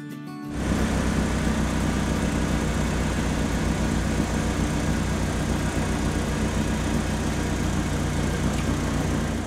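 Heavy truck engine sound effect running steadily with a low rumble, starting about half a second in.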